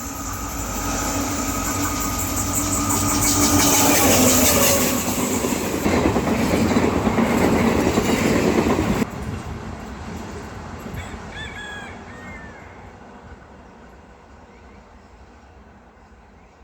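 Diesel-hauled train of wagons rolling past, the hum of its EMD diesel locomotive giving way to wheels clattering over the rail joints. It builds to its loudest over the first few seconds, drops sharply about nine seconds in, then fades away.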